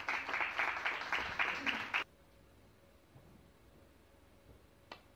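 Audience applause, a run of hand claps that cuts off abruptly about two seconds in. Near the end comes a single sharp click of the cue tip striking the snooker ball.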